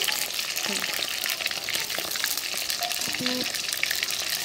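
Paneer cubes shallow-frying in hot mustard oil in an iron kadhai: a steady sizzle full of small spitting crackles, with the pieces being turned by a steel spatula.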